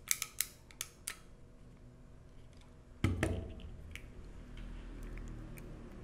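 Sharp plastic-and-metal clicks of a Klein Tools ratcheting pass-through RJ45 crimper being handled as a plug is seated in its jaws, with a louder snap about three seconds in followed by a few more clicks.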